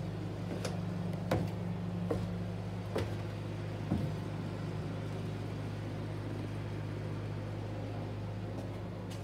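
A steady low machine hum, with about five short knocks spread over the first four seconds.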